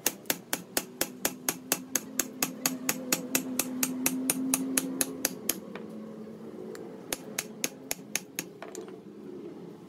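Hammer tapping a steel king pin down into a truck front-axle steering knuckle: rapid metal-on-metal strikes about five a second, stopping about five and a half seconds in, followed by a few scattered taps.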